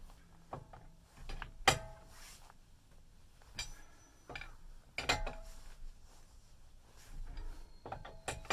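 Steel four-way cross lug wrench clinking against the wheel nuts as it is fitted and turned: several sharp metallic clinks, some ringing briefly, the loudest about two seconds in.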